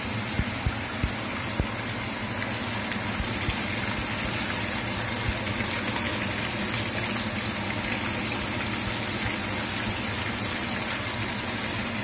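Chicken wings deep-frying in hot oil in a wok: a steady sizzle with a few sharp pops of spattering oil, most of them in the first couple of seconds.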